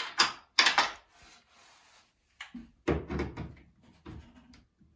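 Cordless drill driving a screw through the vanity cabinet's metal wall bracket into a wooden wall brace, in short irregular spurts, with sharp clicks and knocks in the first second.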